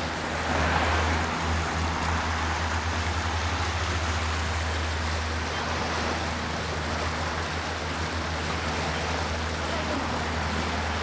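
Steady rush of a creek running high after rain, with a steady low rumble underneath.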